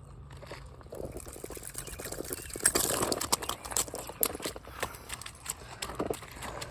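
Water splashing with irregular knocks and rustles as a hooked creek bass is handled and unhooked, loudest for a moment about three seconds in.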